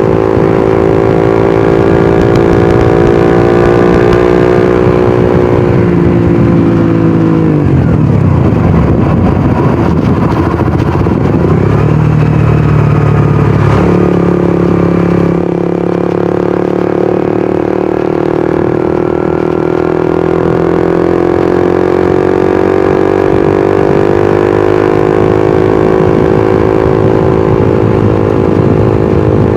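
Suzuki GSX-R150's single-cylinder engine and exhaust under way at steady revs; about six seconds in the revs fall away, run low and rough for several seconds, then pick up again around fourteen seconds and settle into a steady cruise that slowly climbs.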